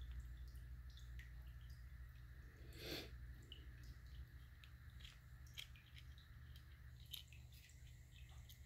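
Near silence with faint handling sounds: small plastic clicks and a brief rustle about three seconds in as a silicone cover is worked onto a teeth-whitening light's plastic LED housing, over a steady low hum.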